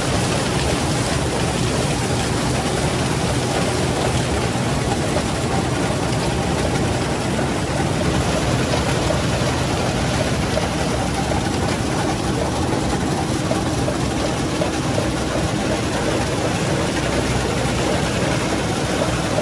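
Case IH 2388 combine running steadily while threshing sunflower: a constant diesel engine and machinery noise with a low hum underneath.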